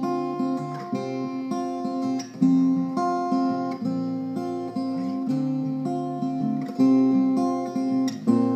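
Acoustic guitar fingerpicked on its own, an instrumental passage of plucked notes ringing over changing bass notes.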